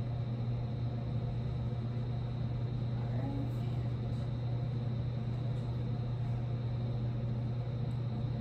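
Steady low hum of background machinery, unchanging throughout, with a few faint light ticks.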